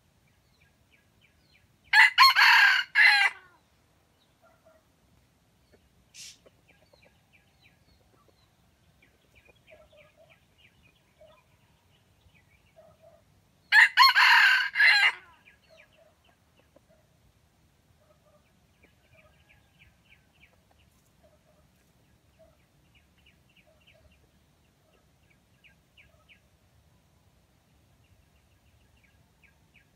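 Red junglefowl rooster crowing twice, about twelve seconds apart, each a short, broken crow of just over a second. Faint, scattered bird calls come between the crows.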